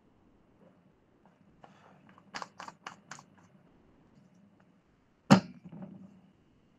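Four quick sharp clicks a little over two seconds in, then a single much louder knock about five seconds in, followed by brief softer rustling.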